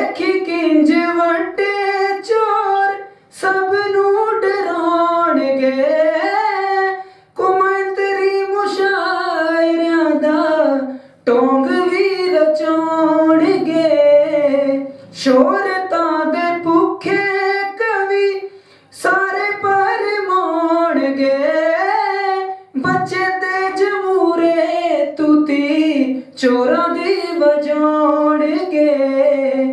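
A young singer's high voice singing a Punjabi song into a microphone, with no accompaniment heard, in phrases of a few seconds broken by short pauses for breath.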